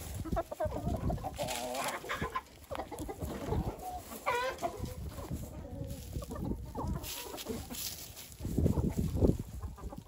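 Domestic hens clucking while they peck at scattered hay, with a drawn-out wavering call about four seconds in.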